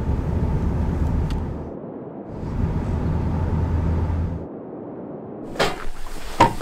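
Pickup truck driving past on a snow-covered road: a low rumble with tyre hiss that swells and fades twice, each pass about two seconds long. Near the end, plucked-string music begins.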